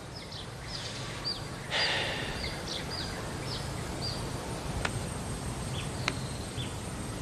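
Small birds chirping over steady outdoor background noise: many short, high chirps that sweep downward, a few each second, with a rush of noise about two seconds in and two sharp clicks near the end.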